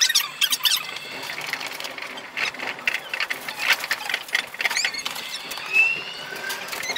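Chiba Urban Monorail 0 Series train running sounds, heard from the cab and played at five times speed, so they come out as a rapid chatter of clicks and squeaks. Short rising whistles come in near the end as the train pulls away from a station.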